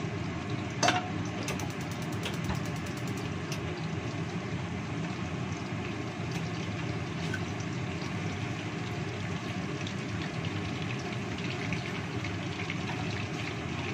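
Tilapia frying in oil in a wok: a steady sizzle, with a sharp knock of the wooden spatula against the pan about a second in.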